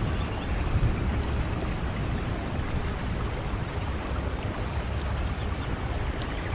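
Steady rain with a low rumble of wind on the microphone. Two short runs of small high chirps cut through, about a second in and again about four and a half seconds in.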